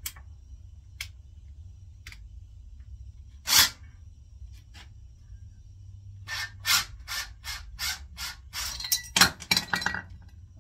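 Hand tools working a pulley off a Delta Rockwell bandsaw's shaft, metal on metal. A few scattered clicks come first, then one louder scrape about three and a half seconds in, then a quick run of about a dozen short scraping strokes near the end as the pulley comes free.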